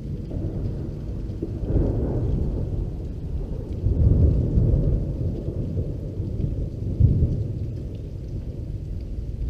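Rolling thunder from a lightning strike about 700 m away: a low rumble that swells about two seconds in, grows loudest around four to five seconds, and peaks sharply again just after seven seconds, with rain falling.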